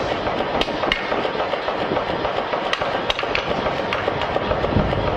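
A hand hammer striking a red-hot parang blade on a steel anvil in a series of uneven, sharp metal-on-metal blows, over steady background noise.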